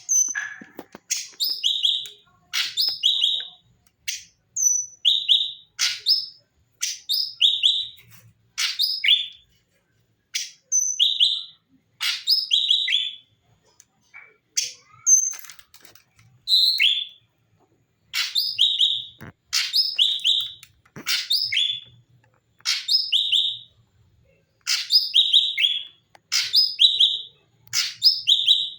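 A cucak cungkok, a leafbird, singing in short, repeated phrases of quick high chirping notes, with brief pauses between phrases.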